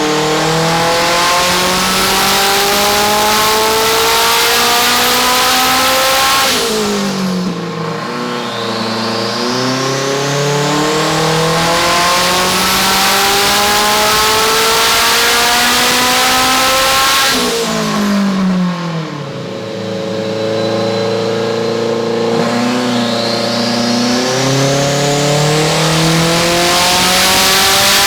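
Turbocharged race car engine accelerating hard under boost, its pitch climbing steadily in three long pulls. Two brief drops in pitch, about seven and eighteen seconds in, are upshifts.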